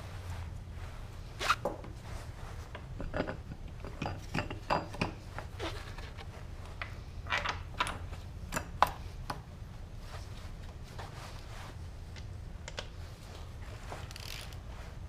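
Yamaha R6 inline-four engine running with a low steady hum, over which come irregular sharp metallic knocks and clatters, bunched through the first half and then dying down: the knocking noise the bike is making.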